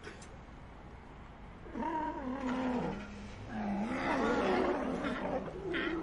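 Sea lions calling. After a quiet second and a half come two or three long, lower calls that waver and drop in pitch, and a short, sharp bark just before the end.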